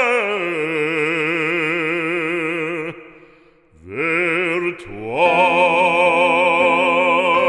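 Operatic voice singing a French hymn in long held notes with wide vibrato. The note breaks off about three seconds in, then the voice comes back with a rising note and settles on a new held note about five seconds in.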